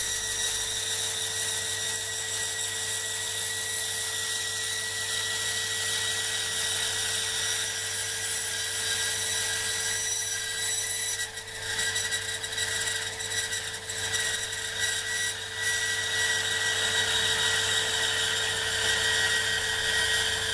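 Startrite 401E bandsaw running and cutting, the blade giving a steady high whine that wavers briefly in the middle. The changed pitch comes from a dull blade that has jumped out of its guides and is riding on the front edge of a guide.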